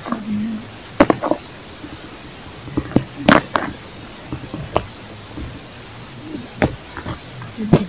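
Dry leaf litter and twigs crackling and snapping underfoot and under hand as someone moves through forest undergrowth: irregular sharp snaps, a cluster about a second in and the loudest about three seconds in.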